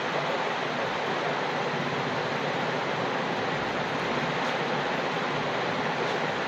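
Steady, unbroken rushing noise that holds the same level throughout.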